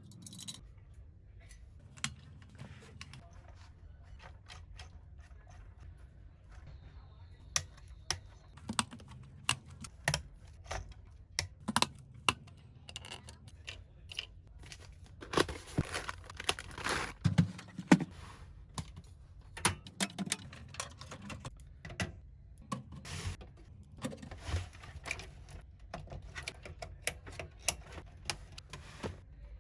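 Irregular clicks, taps and knocks of hard plastic and metal computer parts being handled and fitted together, with a busier run of clatter about halfway through.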